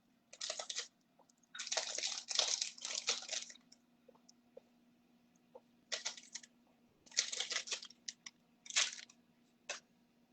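Crisp raw carrots crunching in several irregular bursts, over a faint steady hum.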